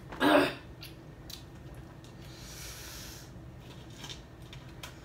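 A brief vocal sound just after the start, then faint scratching and paper rustling from scratch-off lottery tickets being worked, with a few light ticks and a soft hiss in the middle.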